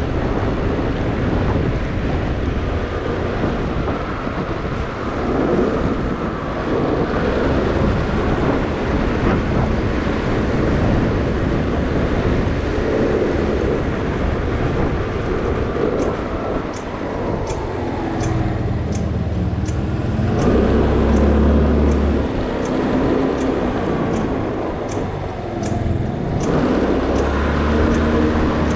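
Motorbike riding: its engine running under a steady rush of wind noise, with the engine note falling and rising in pitch in the later part. In the second half there is a regular light ticking, about one and a half ticks a second.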